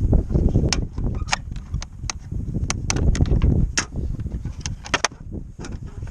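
Irregular sharp plastic clicks and taps as bulb sockets are twisted out of a pickup's third brake light assembly and the light is worked free, over a steady low rumble of wind on the microphone.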